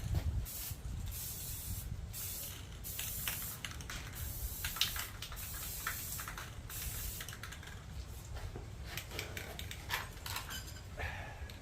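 Aerosol spray-paint can hissing in several short bursts with brief pauses between, with a few light clicks later on.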